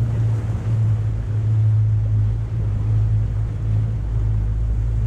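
Outboard motor of a small dinghy running at a steady speed, a constant low drone, with water rushing past the hull.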